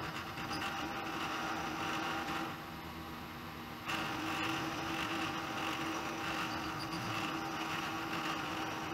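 Mill-drill running with an end mill facing the top of a plug-welded steel block: a steady motor hum under the hiss of the cut. The cutting noise eases for about a second near the middle, then picks up again.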